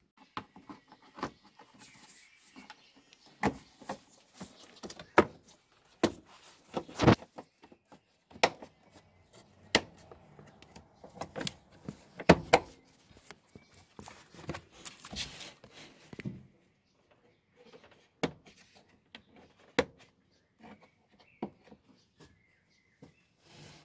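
Irregular clicks, knocks and rustles of handling: a hand-held socket and the phone or camera being moved about the engine bay. There are a few sharper knocks in the first half, and it is sparser after about two-thirds of the way through.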